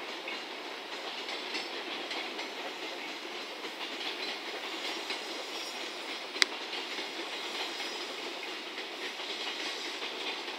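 Loaded container freight wagons rolling past, a steady noise of wheels on the rails, with one sharp click a little past the middle.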